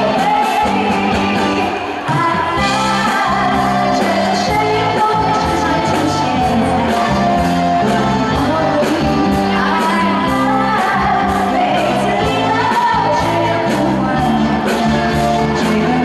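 Woman singing a pop song live into a microphone, backed by a live band with bass and drums.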